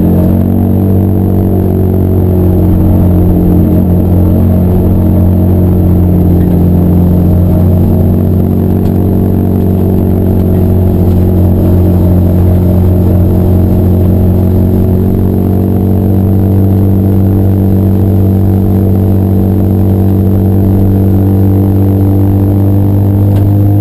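Car engine running loud and steady, its pitch drifting only slowly and rising a little near the end.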